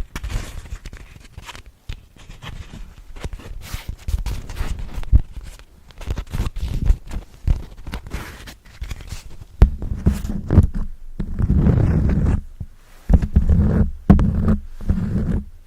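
Close-miked ASMR trigger sounds: quick scratching and rubbing strokes on a textured surface. From about ten seconds in they become heavier, deeper rubbing passages with short breaks between them.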